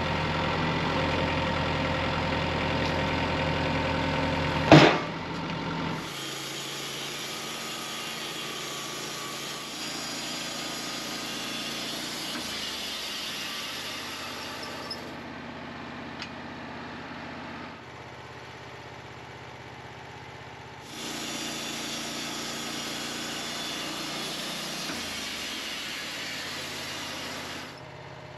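An engine running steadily at idle, with one sharp knock about five seconds in. The engine sound drops abruptly in level about six seconds in, comes back up near the end and drops again.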